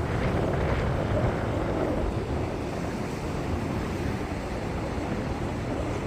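Strong wind buffeting the microphone, with surf washing on the beach underneath.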